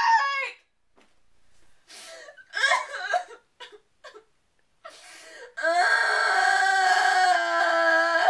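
A person crying in a tantrum: the tail of a wail, a few short broken sobs, then one long steady wail held for nearly three seconds near the end.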